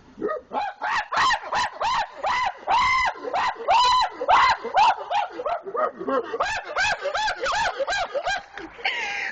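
A man imitating a monkey with rapid, repeated hoots and cries, each call rising and falling in pitch, several a second, carrying on without pause.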